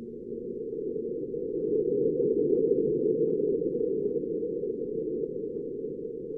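Low, muffled rushing noise that swells to a peak about halfway through and slowly fades, with faint scattered crackles above it: an eerie recording presented as a sound of space.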